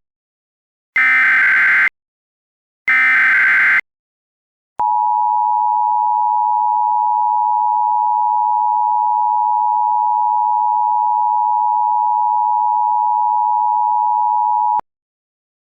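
Mock Emergency Alert System tones. First come two short, buzzy SAME header data bursts about a second apart. After a brief gap, the steady two-tone EAS attention signal sounds for about ten seconds and then cuts off abruptly.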